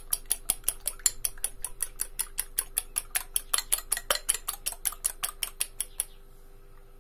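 Fork beating eggs in a cut-glass bowl: quick, even clicks of metal on glass, about five a second, stopping about six seconds in.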